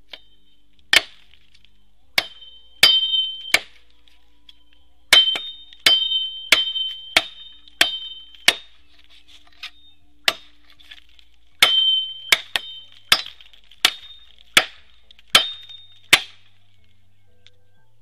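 A blade such as a machete chopping into a green bamboo culm: about twenty sharp blows in irregular runs with short pauses, each a hard crack with a brief metallic ring, stopping about sixteen seconds in.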